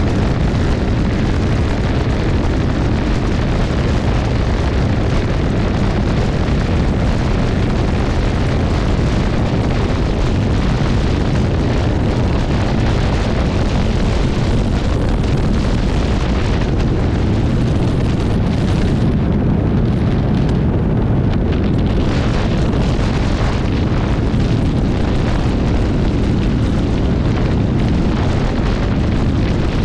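Wind rushing and buffeting over the microphone of a camera mounted outside a light aircraft in flight. It is a steady, loud, low rumble with no breaks, and the airplane's engine noise is likely blended into it.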